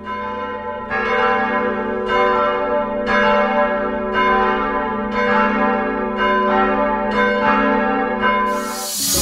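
Church bells pealing: several bells struck one after another, roughly one to two strokes a second, their tones ringing on and overlapping. A hiss swells in near the end.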